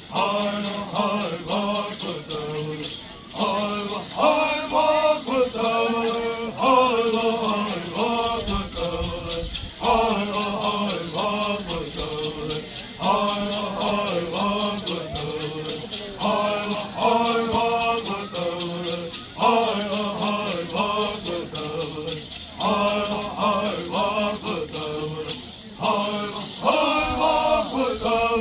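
Bird singers chanting a Bird song in unison with a steady, fast shaking of gourd rattles. The song comes in repeated short phrases, each a few seconds long, with brief breaths between them.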